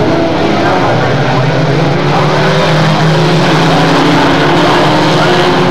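A tight pack of short-track race trucks running at racing speed, several engines at once, loud and steady.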